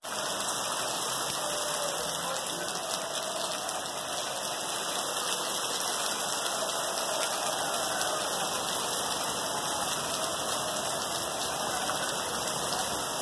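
Heavy rain pouring down onto a flooded paved terrace and glass roof panels: a steady, dense hiss that doesn't let up.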